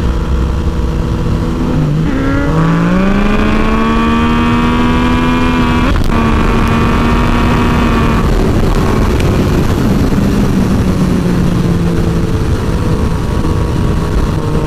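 Motorcycle engine accelerating, its pitch climbing for about four seconds, then breaking off sharply at a gear change about six seconds in and running on steadier and lower. A constant rush of wind noise lies underneath.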